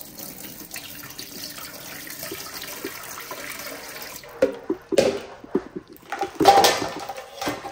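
Running water, a steady pour at first, turning into louder, uneven splashing from about four seconds in.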